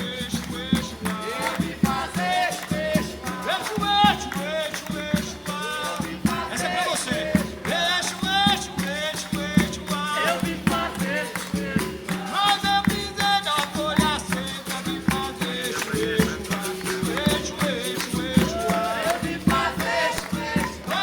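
Capoeira roda music: berimbaus led by the gunga, with shaker-like rattling percussion and a continuous rhythm of strikes under voices singing.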